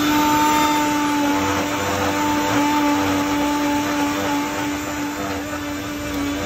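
Electric blender grinding wheatgrass with water: its motor runs at a steady pitch with a constant whine.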